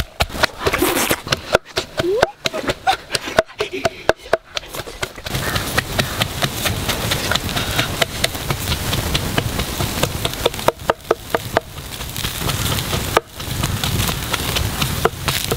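A wooden pestle pounding red chillies in a mortar, several quick knocks a second, for about the first five seconds. Then a wood fire crackling and snapping steadily in a pit under roasting ducks.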